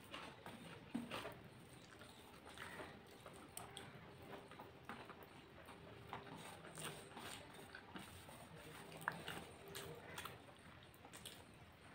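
Faint eating sounds: chewing, and fingers mixing rice and vegetables on a steel plate, heard as scattered soft clicks and wet small noises.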